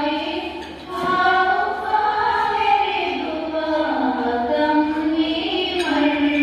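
A group of women singing a song together in unison, with a brief drop for breath just before a second in.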